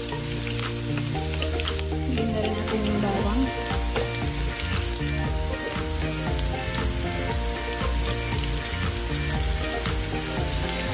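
Chopped onion sizzling steadily in hot oil in a frying pan, with minced garlic tipped in from a small bowl partway through.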